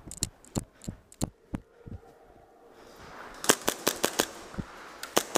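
Airsoft guns firing in a close-quarters game: irregular sharp cracks of single shots through the first two seconds, then a quick run of shots about three and a half seconds in and a couple more near the end.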